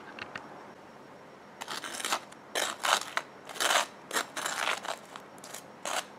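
A run of short, crisp crunching scrapes, about eight of them starting a second and a half in, from a loaded bacon cheeseburger being handled and pressed together.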